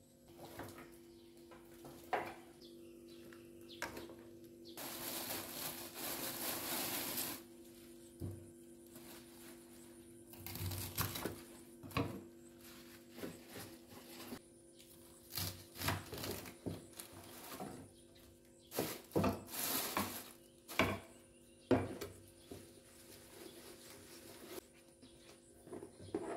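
Scattered knocks and clicks of objects being handled and set down, with a few seconds of hissing rush about five seconds in and another brief one near twenty seconds, over a faint steady hum.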